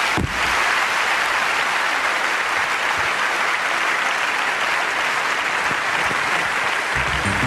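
Large audience applauding steadily, opened by one sharp bang just at the start.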